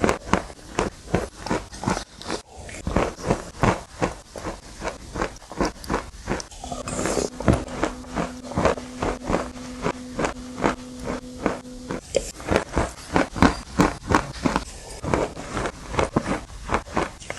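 Close-up chewing of a crunchy dessert, steady crunches about three a second. A steady low hum sounds from about seven seconds in to about twelve.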